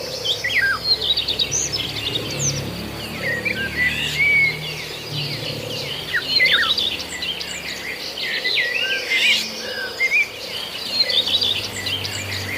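Many small birds chirping at once: a dense chorus of short, overlapping chirps and quick pitch sweeps, with a steady high buzz underneath.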